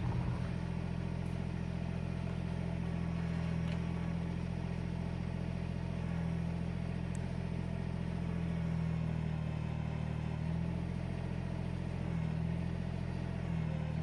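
Kubota BX subcompact tractor's diesel engine running steadily at low RPM while it powers the backhoe. The engine note dips and swells slightly as the hydraulics take load.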